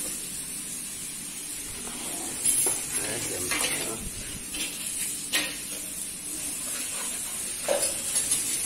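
Tempe frying in hot oil in a wok, a steady sizzling hiss, with a few short clatters of pans and utensils.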